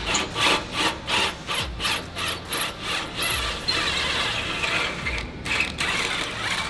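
Ratchet wrench clicking in repeated strokes, about three a second, then a quicker continuous run of clicks, as fasteners on the exhaust are undone.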